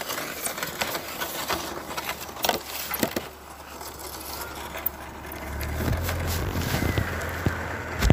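A motor vehicle's engine, a low steady hum that comes in and grows louder about five and a half seconds in, with scattered clicks and rustles before it.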